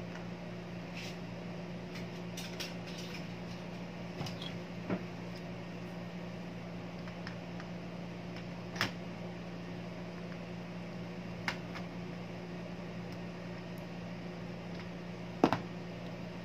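Steady low hum with a few short, sharp clicks of pliers and small tools handled at a circuit board; the loudest click comes near the end.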